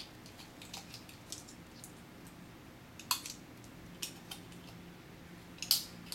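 Small sharp clicks of dummy rounds being pressed into a Springfield XD subcompact 9mm pistol magazine, with three louder clicks in the second half.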